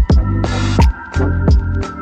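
Electronic music with a heavy kick-drum beat and a deep bass line, a hissing swell briefly about half a second in.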